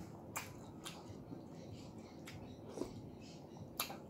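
Mouth sounds of a person eating macaroni soup from a spoon: quiet chewing and wet lip smacks, with about five short soft clicks spread through.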